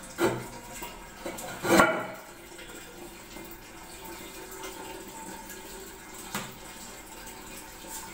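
Ceramic toilet cistern lid knocking twice as it is set into place, then a steady hiss of water running into the cistern through its fill valve.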